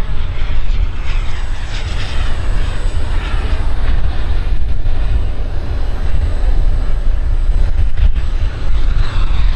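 Xicoy 132 model turbojet of a radio-controlled F-35A jet running in flight, a steady jet hiss whose tone sweeps up and down as the plane passes, over a heavy low rumble.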